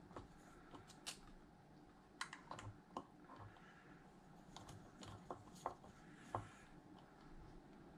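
Faint, irregular light clicks and taps of small hand tools and metal parts (screws, nuts, gear) being handled on a workbench, about a dozen in all, the sharpest two a little after the middle.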